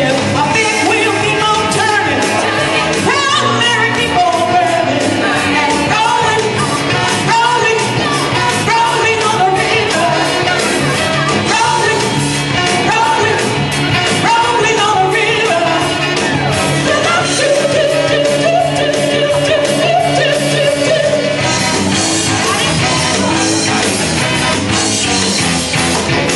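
Live band playing an up-tempo rock and roll number, with singing over a steady driving beat.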